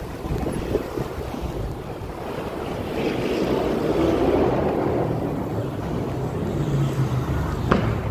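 Wind buffeting the microphone of a moving bicycle, a steady rumbling rush that swells about halfway through, with one sharp click near the end.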